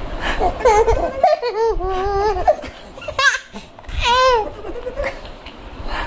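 Baby laughing and squealing in a few high, wavering calls, the longest lasting about a second.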